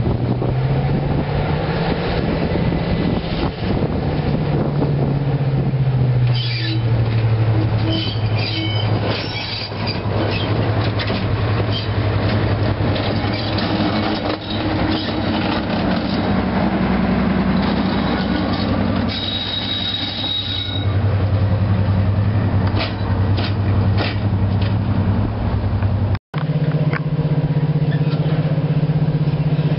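Class 55 Deltic diesel locomotive, its twin Napier Deltic two-stroke engines running loudly as it moves at low speed, the engine note rising and falling with the power. Wheels click over the rail joints, with a brief thin squeal from the wheels about two thirds of the way through.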